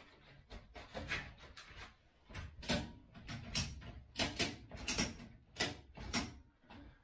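Ratchet strap being cranked tight by its ratchet handle: a run of sharp clicks, about two a second, faint at first and louder from about two seconds in, as the strap is pulled nice and tight.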